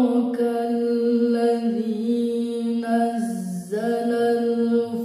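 A woman reciting the Quran in the melodic chanting style (tilawah), one voice drawing out long held notes with slow ornamented turns of pitch, dipping lower about three and a half seconds in before rising back.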